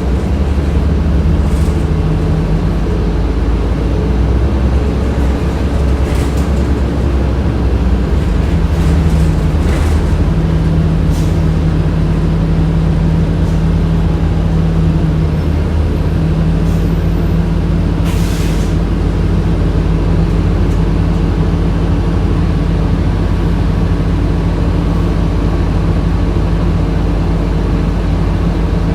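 Inside a 2007 Orion VII transit bus under way: the steady drone of the HVAC system and drivetrain, a low hum that shifts slightly in pitch. A few short air hisses break in, the clearest about two-thirds of the way in.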